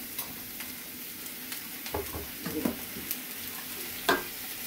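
Sliced onions sizzling in sesame oil in a stainless steel pan, with a metal spoon stirring and scraping against the pan. There are scattered clicks of the spoon on the metal, and a sharper clink about four seconds in.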